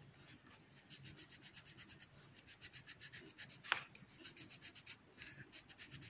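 Colored pencil scratching on paper in fast back-and-forth shading strokes, several a second, with short pauses, as layers of colour are laid down to hide the pencil lines. A single sharper tick about two-thirds of the way through.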